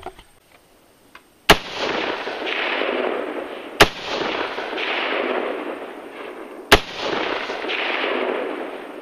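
Three rifle shots about two to three seconds apart, each followed by a few seconds of loud rolling noise that fades before the next shot. The shots are striking about a foot high and do not set off the Tannerite target.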